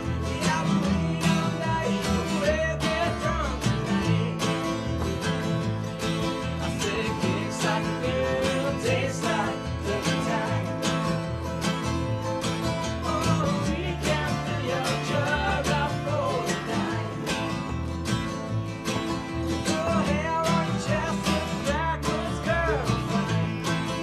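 Band playing a country-bluegrass song with acoustic guitar to a steady beat.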